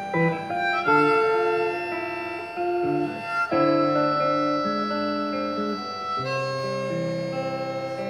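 Harmonica playing an instrumental passage of held notes and chords through a vocal microphone, over acoustic guitar accompaniment.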